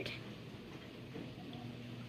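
Quiet room tone with a faint, steady low hum and no distinct event.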